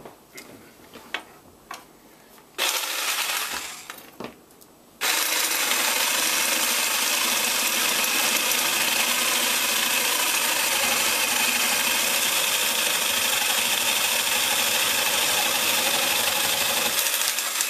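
Electric sabre saw cutting into a butternut squash: after a few light clicks it runs in a short burst, stops, then starts again and runs steadily for about twelve seconds, its blade sawing through the squash's neck, and stops near the end.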